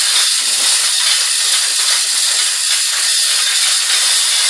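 Hand-pulled manual chain hoists clicking steadily as they ratchet, their chains rattling, while lifting a heavy engine block.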